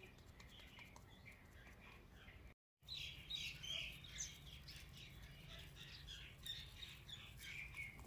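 Small birds chirping faintly, a busy run of short calls that picks up after a brief total dropout about two and a half seconds in, over a low steady background hum.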